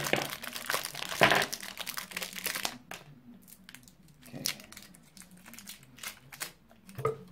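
Chew-Its sweet wrappers crinkling and tearing as they are opened by hand: dense crinkling for the first couple of seconds, then scattered small crackles.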